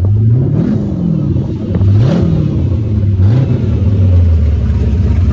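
Ford Ranger prerunner truck's engine revving up and dropping back three times as it drives across sand, then running steadily at a lower pitch once the truck pulls up, about four seconds in.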